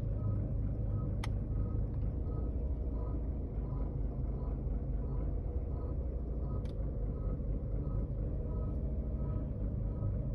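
Seat Ibiza 1.6 TDI four-cylinder diesel engine idling steadily, with a faint repeating chirp about every two-thirds of a second: the small abnormal noise that the owner suspects comes from either the timing belt or the injectors. A sharp click about a second in and another near seven seconds.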